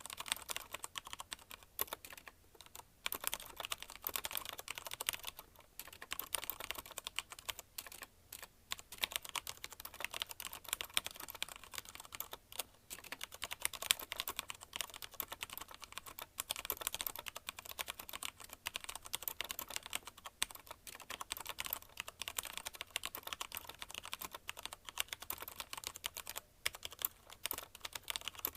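Steady fast typing on a CM Storm Quick Fire TK mechanical keyboard with linear Cherry MX Red switches: a dense run of keystroke clacks, broken by a few brief pauses.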